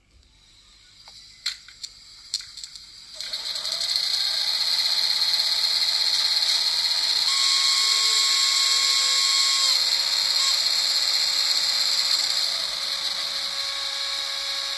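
A few clicks, then a small model-railway electric motor and its gearing start whirring steadily about three seconds in, with a faint rising whine.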